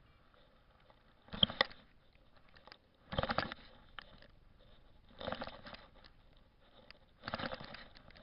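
Crunching rustles in wet ground and grass, repeating about every two seconds, each lasting about half a second, the first the loudest.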